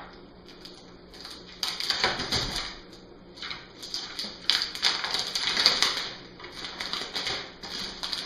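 Plastic packaging crinkling and rustling in irregular bursts as it is worked open, with scattered clicks.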